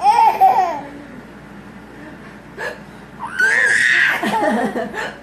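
Baby laughing hysterically in bursts: a short laugh at the start, then a longer, high-pitched belly laugh from about three seconds in.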